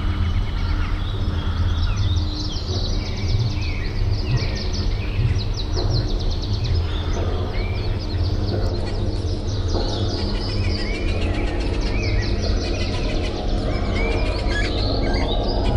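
Many birds chirping and calling over a steady low rumble, with an abrupt change in the sound about nine seconds in.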